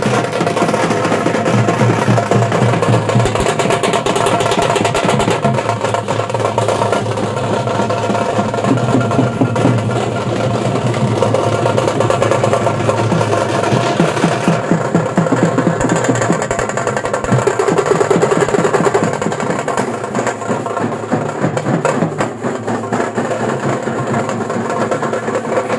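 Loud drum-led music with a continuous percussion beat.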